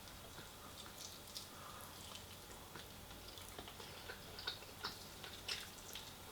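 Someone chewing fried chicken close to the microphone: scattered small crunches and wet mouth clicks, coming more often in the second half.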